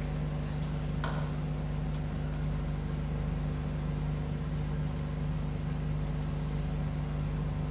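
Puris deep-frying in hot oil in a kadhai, a steady sizzle, over a steady low machine hum.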